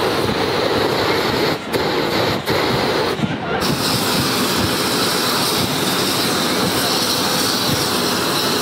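Hot air balloon propane burners firing, a loud steady rushing with a few brief breaks in the first three and a half seconds.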